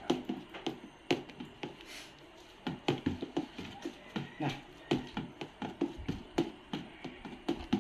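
A stick stirring a thick dishwashing liquid soap mixture in a plastic basin: irregular knocks and taps, roughly three a second, as the stick strikes the basin.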